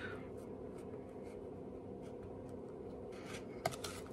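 Faint rubbing and light ticks of fingers pressing tape down on a cardstock box, with one sharper click near the end, over a steady low hum.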